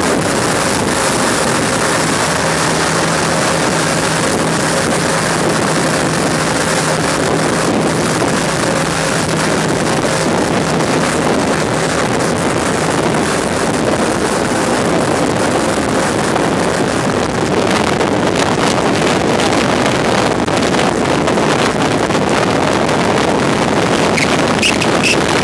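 Small motorboat running at speed: a steady engine drone mixed with the rush of water, and wind buffeting the microphone, gustier in the second half.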